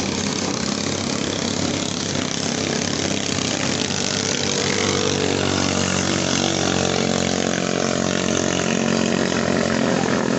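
Small single-cylinder racing-boat engines running hard and steadily, a high buzzing drone; around the middle the pitch shifts and the sound grows a little louder as a racing boat speeds past.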